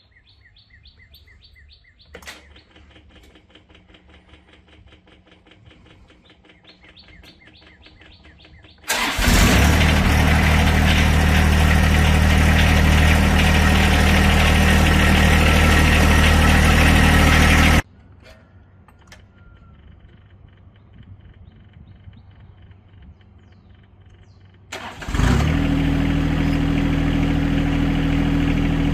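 John Deere 2025R compact tractor's three-cylinder diesel engine started twice and running steadily, each time stopping or starting abruptly. Before the first start there is a faint, rapidly repeating high-pitched tone. During the quiet stretch between runs there is a faint, steady high-pitched tone. After the second start the engine's pitch creeps up near the end.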